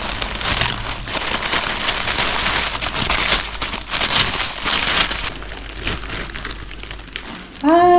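Packaging being opened by hand, a dense rustling and crinkling that is loudest for the first five seconds, then thins to occasional faint crackles. A voice starts up just before the end.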